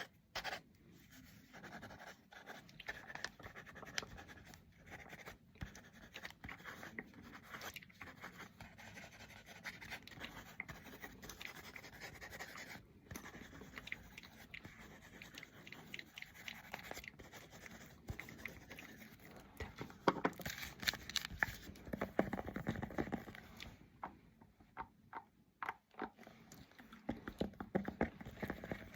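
A sheet of paper handled close to the microphone: close, crackly rustling and scratching made of many small clicks, louder for a few seconds about twenty seconds in.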